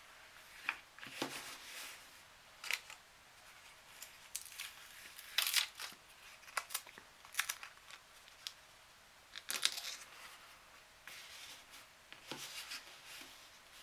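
Quiet hand work on a small object: about a dozen light clicks, scrapes and rustles spread out with pauses between them.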